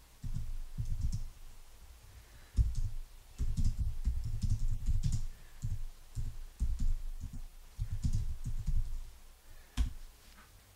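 Typing on a computer keyboard: uneven runs of dull keystrokes with short pauses, ending in a single sharper key click near the end.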